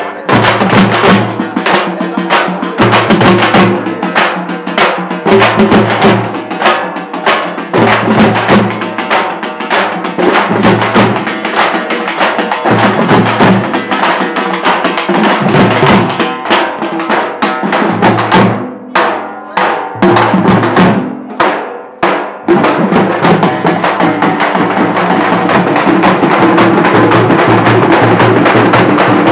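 A group of drummers beating large stick-played drums in a fast, loud, driving rhythm, with a few short breaks in the middle, then breaking into a continuous rapid roll for the last several seconds.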